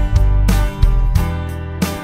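Instrumental song accompaniment with no vocals: strummed acoustic guitar over sustained deep bass notes, with a strum about every half second.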